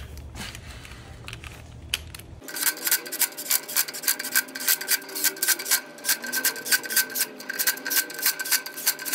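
Bosch cordless power driver running down nuts on a heater's brass terminal bus bars. It starts about two and a half seconds in as a fast, even clicking rattle over a steady whine.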